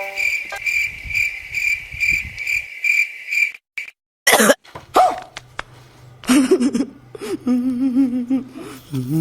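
Cricket chirping, a high pulsed chirp repeating a little over twice a second, then a sudden cut. After that come a few short rough bursts, like coughs, and a wavering vocal sound.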